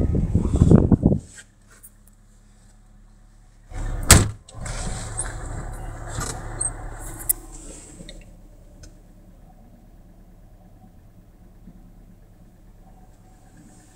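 Handling noise and rustling from moving around inside a car's cabin, with a single sharp knock about four seconds in. A faint steady low hum runs underneath.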